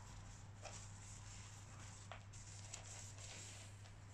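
Near silence: quiet room tone with a steady low hum and a few faint soft ticks and rustles.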